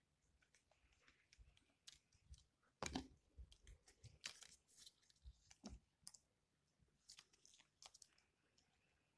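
Faint, scattered clicks and taps of plastic drinking straws being handled and laid on a hard tabletop, with a few louder knocks around the middle.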